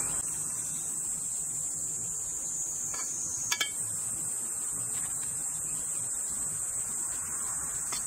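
Steady, high-pitched insect chorus, with two short knocks about three seconds in as a knife scoops flesh out of a hollowed pineapple.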